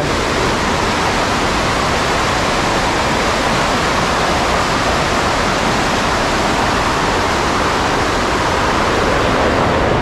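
Powerful waterfall heard up close: a loud, steady rush of falling, churning water.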